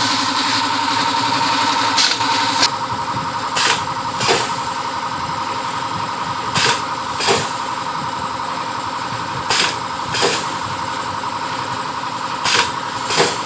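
Vertical form-fill-seal sugar packing machine running with a steady hum and whine, its pneumatic sealing and cutting cylinders firing in pairs of sharp strokes about two-thirds of a second apart, roughly every three seconds, as each pouch is sealed and cut.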